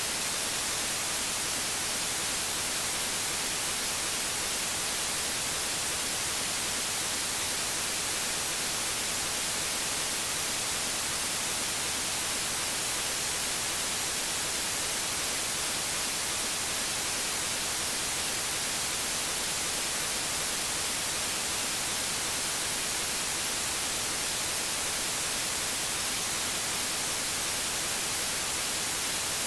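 Steady electronic static hiss, even and unchanging, strongest in the high end.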